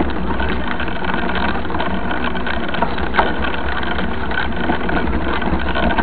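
Steady rumble of wind on the microphone and tyre noise on a dirt road from a mountain bike riding along, with a sharp click about three seconds in.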